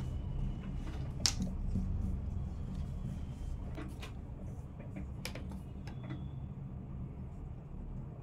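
Handling sounds on a sewing table: cloth being smoothed and spread, with a few light clicks and knocks as a ruler is set down on the fabric, over a steady low hum.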